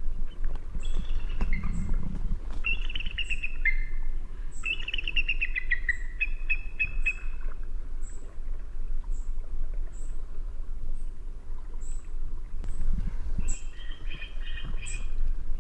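Eagle calling in bursts of quick, high, whistled notes that fall in pitch, several series in the first half and again near the end, with a lull of several seconds between. A short, very high chirp repeats about once a second throughout, over a low rumble.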